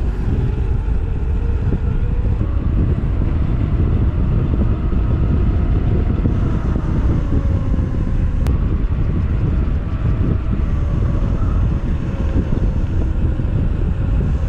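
A vehicle under way: a steady heavy low rumble of engine, road and wind noise, with a faint engine hum shifting slightly in pitch.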